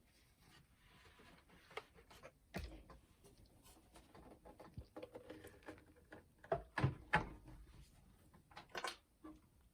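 Hands handling the boombox's plastic casing and cassette-deck parts: scattered light clicks and taps, with a few louder knocks about two-thirds of the way through.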